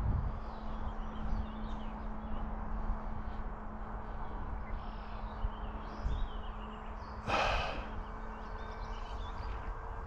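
Distant hum of an RC model Cessna's motor and propeller in steady flight at about half throttle, with a second, higher tone joining about six and a half seconds in. Birds chirp throughout, and a short rush of noise comes about seven seconds in.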